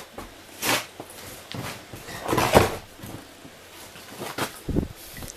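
A few short knocks and scrapes, the loudest about halfway through.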